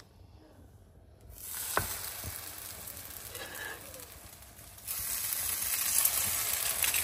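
French toast frying in a pan, sizzling. The sizzle comes in about a second in and gets louder about five seconds in.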